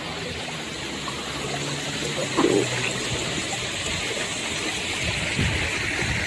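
River water running past an inner tube drifting downstream, a steady wash that grows a little louder near the end.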